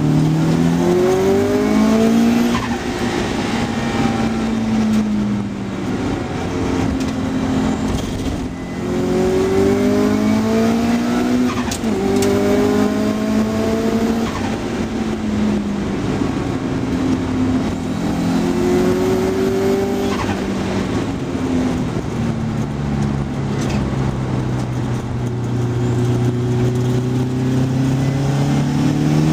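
Car engine heard from inside the cabin at track pace, repeatedly revving up in rising runs broken by quick upshifts, dropping back between them. A long, steadier engine note near the end.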